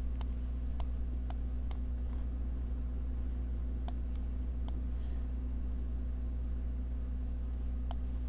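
Computer mouse clicking about seven times at irregular intervals, over a steady low hum.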